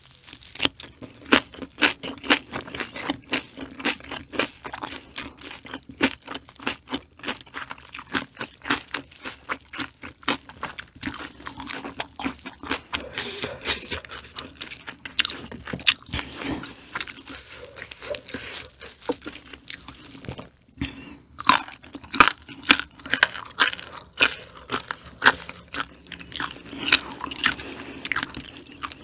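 A person chewing crunchy food close to the microphone: a dense run of crisp crunches and chews. There is a brief pause about two-thirds of the way in, then louder crunching.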